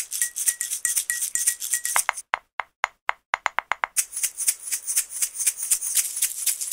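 Background music of fast shaker and clicking percussion. About two seconds in it thins to a few sharp taps, and the dense shaker rhythm comes back about four seconds in.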